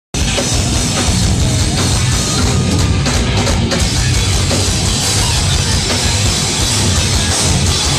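Live metal band playing at full volume: heavily distorted electric guitars over a pounding drum kit. The music cuts in suddenly right at the start.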